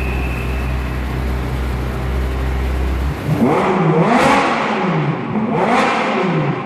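Ferrari 458 Italia's 4.5-litre V8 idling steadily, then revved twice, with a rising and falling exhaust note peaking about four and six seconds in.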